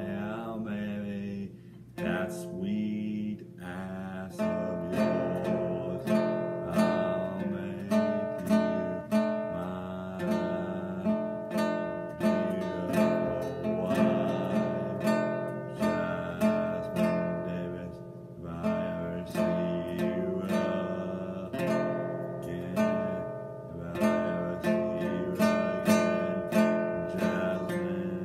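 Acoustic guitar strummed in a steady rhythm, with a man's singing voice over it at times.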